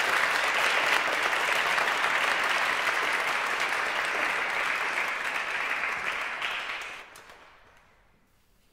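Audience applauding, a dense steady clapping that dies away quickly about seven seconds in.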